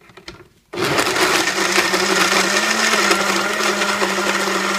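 Oster single-serve blender, its cup held pressed down on the base, starting with a few light knocks and then switching on abruptly under a second in, the motor running at a steady pitch as it blends a shake with ice.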